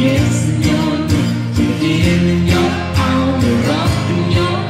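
A man and a woman singing together live over instrumental accompaniment with a steady beat.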